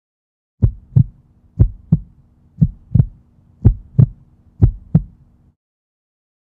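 Heartbeat sound effect: five lub-dub double beats, about one a second, ending about five and a half seconds in.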